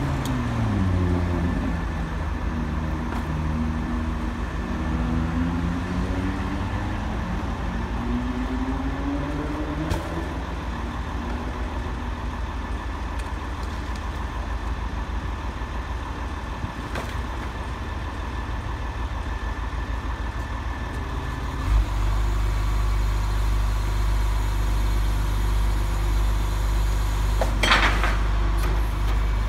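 Garbage truck diesel engine running, its pitch rising and falling over the first ten seconds. About 22 seconds in it steps up to a louder steady low drone, and a short hiss of air comes near the end.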